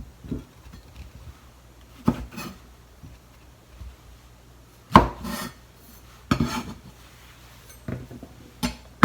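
Kitchen knife trimming the hard tips off shiitake mushroom stems on a cutting board: a few separate sharp knocks of the blade going through to the board, a second or more apart.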